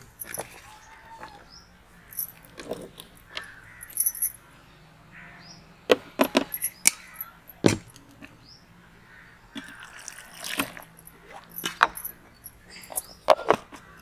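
Pineapple chunks and sugar being put by hand into a plastic mixer-grinder jar: scattered knocks and clatters against the jar, with the grinder not yet running. Birds chirp briefly now and then.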